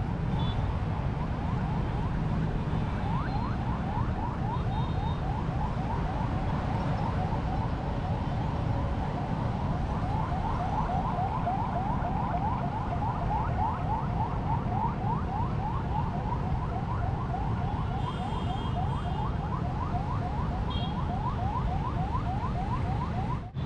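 An electronic siren or alarm tone sweeping rapidly in pitch, over and over at about three sweeps a second, over a steady low rumble.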